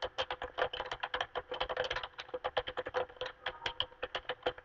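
Rapid typing on a computer keyboard, a quick, even run of keystrokes several a second.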